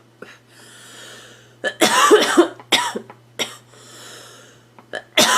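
A girl coughing in fits. She takes a breath in, then lets out a close run of harsh coughs about two seconds in, breathes in again, and coughs several more times near the end. A steady low hum runs underneath.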